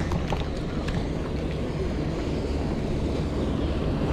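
Steady wind rumbling on the microphone over water sloshing around the kayak, with a few light clicks near the start.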